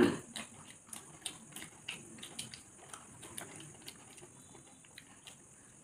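Close-up eating sounds: wet chewing and mouth smacking with soft clicks of fingers against steel plates, several small irregular ticks a second.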